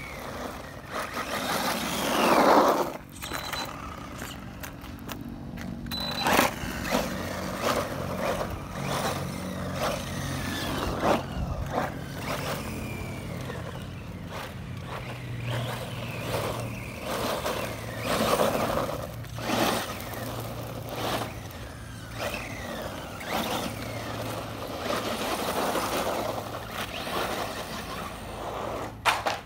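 Electric motors of RC trucks, one an HSP Wolverine 4WD fitted with a Hobbywing 4000kv brushless motor, whining up and down in pitch as the trucks speed up and slow. Their tyres hiss and scrabble on gritty asphalt in several loud bursts.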